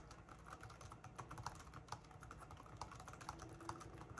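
Typing on an IBM ThinkPad X31 laptop keyboard: faint, irregular key clicks, several keystrokes a second.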